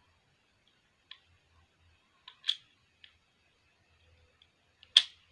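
Crimping tool clicking as its handles are squeezed to crimp an RJ45 connector onto a UTP cable: a few scattered sharp clicks, the loudest near the end.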